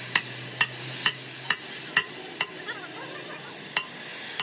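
Hammer blows on metal in a steady rhythm, about two a second, each with a short metallic ring, over a steady hiss. The blows pause briefly in the second half, then one more comes near the end.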